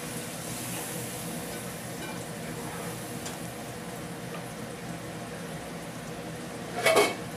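Chicken curry gravy bubbling and sizzling steadily in a nonstick pan over a gas flame after water has been added. Near the end comes one short, louder pitched sound.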